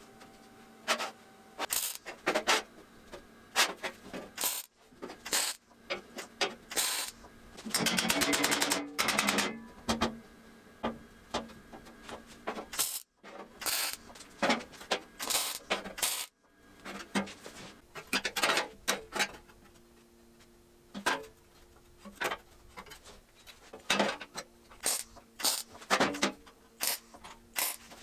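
Steel hinge bracket being tack-welded to sheet steel with a MIG welder: short sharp crackles and metallic clicks come and go throughout, with a longer run of rapid crackling about eight seconds in.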